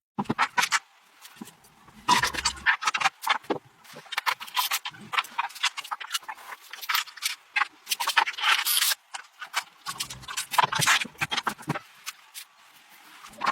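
Irregular scrapes and clicks from hand work on motorcycle parts, in short uneven strokes with no steady rhythm.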